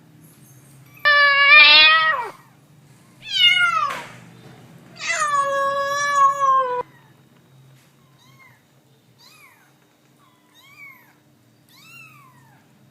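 Kitten meowing: three loud, drawn-out high meows, the first starting abruptly about a second in, then a run of five faint short mews about one a second.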